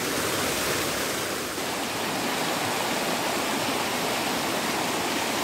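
Steady rush of a shallow rocky forest stream, white water tumbling over mossy boulders.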